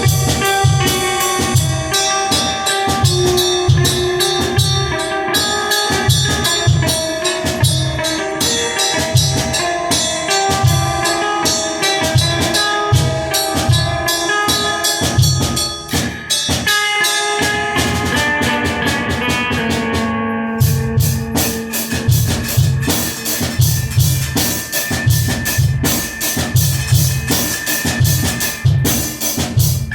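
A guitar and a drum kit playing a song together, with a steady kick drum under the guitar. Midway the drums stop for a few seconds, then come back in under a held guitar note.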